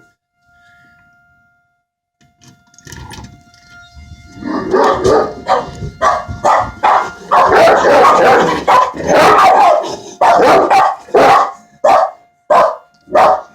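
A dog barking loudly: a dense run of barks starting about four seconds in, then single barks spaced well under a second apart. Behind it runs the faint, steady tone of a tornado siren.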